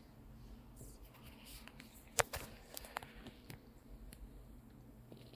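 Quiet low hum with a few scattered light clicks, one sharper click about two seconds in.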